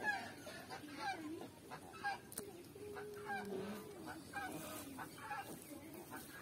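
Domestic fowl calling: a run of short honking and clucking calls, many dropping in pitch, with one longer held note near the middle.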